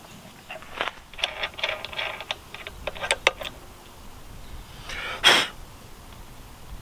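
Irregular metal clicks and clinks as the bolt, washer and tensioner pulley are worked off the tensioner bracket by hand. About five seconds in, a short, loud rushing noise.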